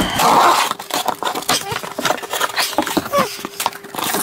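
Scissors dragged along the packing tape of a cardboard box, a loud short rasp at the start, followed by the flaps being pulled open and plastic air-cushion packaging crinkling and crackling.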